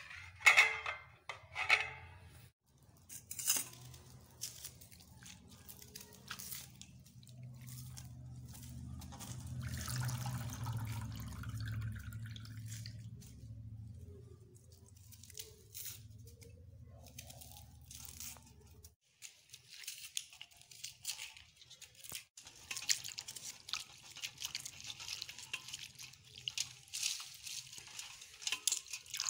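A steel plate clanks onto a steel bowl in the first two seconds. Then hands lift and swish fresh coriander leaves in a bowl of water, splashing and dripping, most busily in the last third. A low steady hum runs through the middle part.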